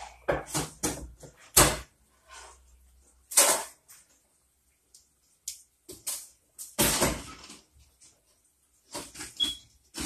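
Irregular short scrapes, rustles and knocks of hands and a hand tool working the wiring at a plastic electrical box, with brief quiet gaps between them.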